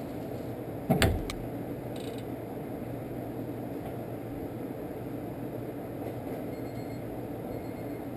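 A single sharp knock about a second in, with a lighter click just after it, as the CV axle and steering knuckle are shifted into position, over a steady low hum.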